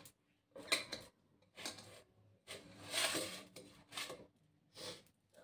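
Hand scooping cooked rice out of a steel pot and serving it onto a steel plate: about five short scraping, rustling sounds, the longest about three seconds in.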